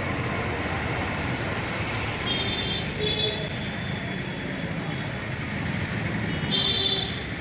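Steady traffic and street noise, with short high-pitched tones breaking through three times, the last the loudest, near the end.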